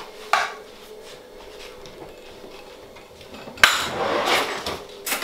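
Kitchenware being handled: a short knock just after the start, then a sharp clack about three and a half seconds in followed by about a second of rattling and scraping, as of a stainless steel pot and utensils moved on a table, and another knock near the end.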